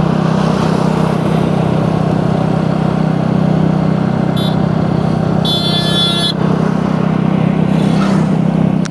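Motor scooter engine running steadily at cruising speed, with wind and tyre noise on the road. A high-pitched horn beeps briefly a little past the middle, then again for about a second.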